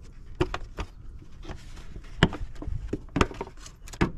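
Irregular clicks and knocks of hard parts being handled, with a couple of louder knocks about two and three seconds in.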